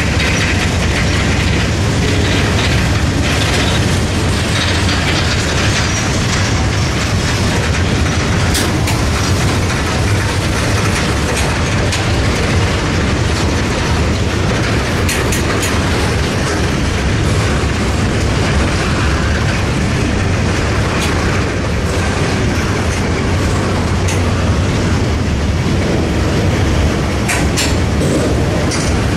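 Freight train of steel gondola cars rolling past, its wheels on the rails making a loud, steady rumble. A few sharp metallic clanks stand out, about nine seconds in, around the middle and near the end.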